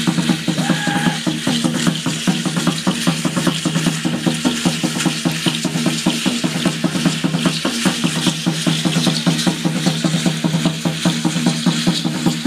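Danza Azteca dance music: drumming with a fast, steady beat under the dense, hissing shake of many dancers' ayoyote seed-pod ankle rattles.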